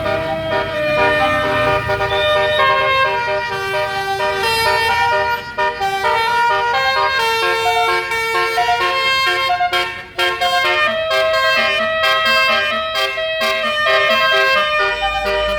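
Bus's basuri telolet horn playing a melody of held, stepping tones, loud and continuous, with short breaks about five and ten seconds in.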